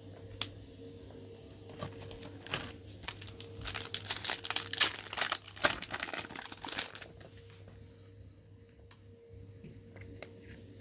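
A foil Magic: The Gathering booster pack wrapper being torn open and crinkled by hand. There is a burst of rustling and tearing about two seconds in, loudest in the middle, then it dies down to a few faint ticks.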